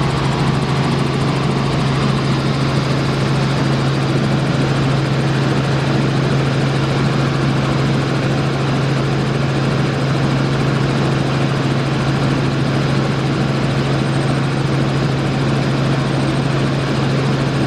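Helicopter in steady flight: its engine and rotor make an unbroken low drone over an even rushing noise.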